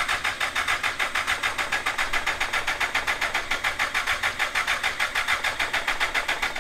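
Electric starter cranking the trophy kart's 1000cc engine at an even rate, about six or seven compression pulses a second, without it catching; the cranking stops abruptly near the end.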